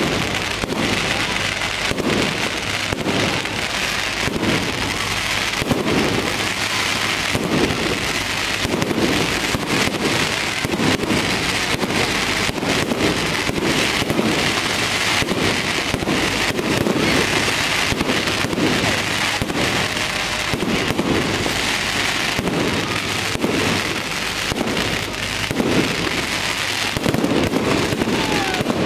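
Aerial fireworks going off in quick succession, a dense stream of sharp bangs and crackles with no break.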